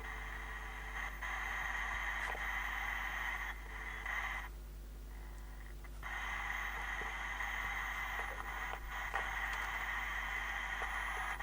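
Static hiss from a Sony 9-306 television's loudspeaker with no station received, over a steady low mains hum. The hiss drops out for about a second and a half midway, then returns.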